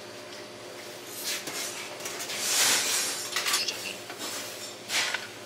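Cutlery and dishes clinking at a barbecue table, in scattered clicks over a light steady hiss, with a brief louder rush of noise a little past halfway.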